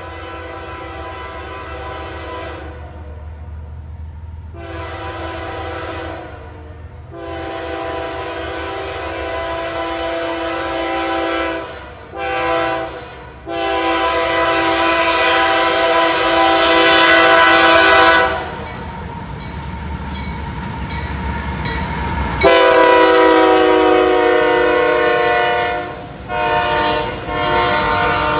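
Freight locomotive's multi-note air horn sounding a series of long and short blasts over the low rumble of the train, getting louder as the train approaches and loudest from about two-thirds of the way through.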